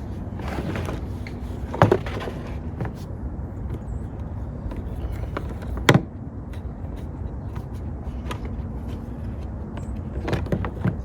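Parts and tools being handled on a work table: two sharp knocks about two and six seconds in, and a few lighter clicks near the end, over a steady low rumble.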